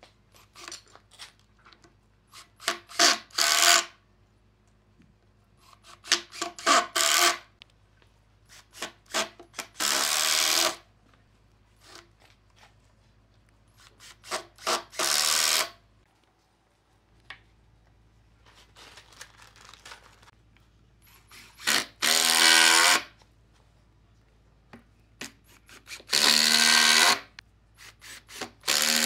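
Makita 18V cordless impact driver driving wood screws into wooden corner blocks. It runs in about seven bursts with pauses between: some are short trigger stutters as a screw is started, others are steady runs of about a second as a screw is driven home.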